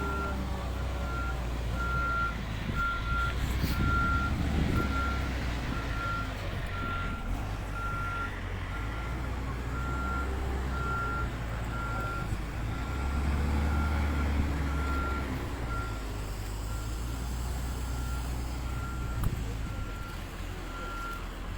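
A heavy vehicle's reversing alarm, one high beep repeating evenly a little faster than once a second, over the low rumble of its engine, which grows louder about two-thirds of the way through.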